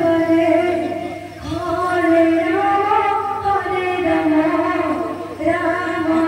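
Women's voices singing a Sambalpuri devotional kirtan in long, drawn-out phrases that rise and fall, with short breaks about a second in and again near the end.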